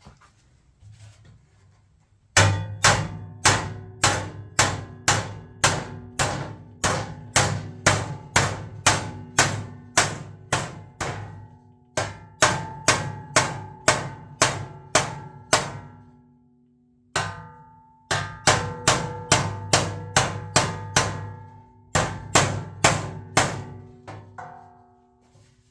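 Hammer blows on a metal part, struck over and over at about two to three a second, each blow ringing. The blows come in runs with short pauses, as a bent or dented part is knocked back into shape.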